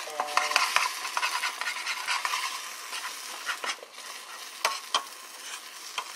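Eggs frying in a nonstick skillet, sizzling steadily, while a spatula scrapes and stirs them against the pan. There are sharp clicks of the spatula on the pan twice, near the end.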